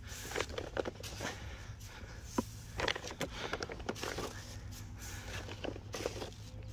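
Footsteps through grass: an irregular series of short soft crunches and rustles over a steady low rumble.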